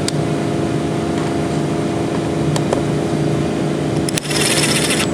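Steady mechanical hum, with a few light metallic clicks as bolts are hand-started into a 42RLE transmission valve body, and a brief rapid rasp about four seconds in.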